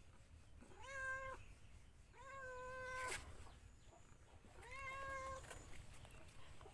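A black-and-white domestic cat meows three times, each meow rising at the start and then held level for just under a second. The cat is begging for the fried chicken held just above it.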